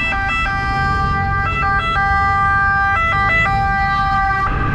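Electronic emergency-vehicle siren, mostly holding one steady note and switching briefly to a second note three times before cutting off near the end. Scooter engine and road noise run underneath.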